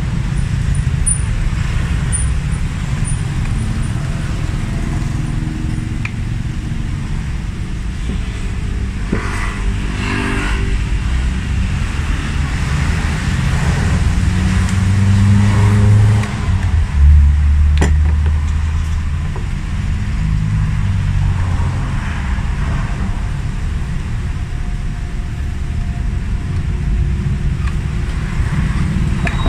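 Steady low rumble of motor-vehicle traffic, with a louder low hum for a few seconds past the middle while an electric soldering gun is run on the alternator's terminals to unsolder the rectifier diode plate.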